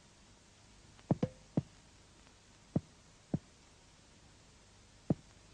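Finger-on-finger percussion of a patient's chest wall over the back: about six short, dull taps, mostly in pairs, striking symmetrical points to compare the percussion note over the two lungs.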